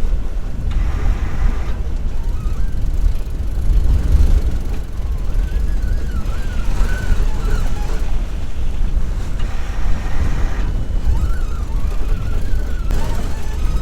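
Wind buffeting the microphone of a sailboat under way, a steady low rumble with a noisy hiss over it. A faint wavering high tone comes and goes several times.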